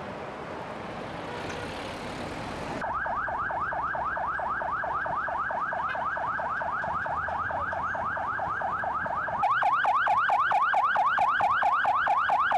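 Electronic siren sounding in a rapid yelp, a rising pitch sweep repeating about five times a second. It starts about three seconds in over street traffic noise and turns much louder at about nine and a half seconds.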